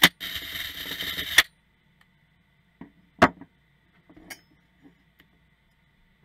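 DeWalt cordless drill running for about a second and a half, then stopping abruptly. Then a few light clicks and knocks as the steel shear halves are handled on a wooden workbench, the loudest about three seconds in.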